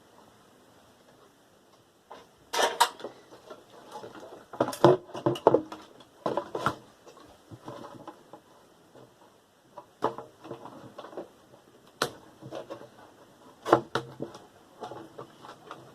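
Irregular clicks, knocks and clatter of metal and plastic computer parts being handled and pulled apart during disassembly of a desktop PC tower, coming in clusters with short pauses between.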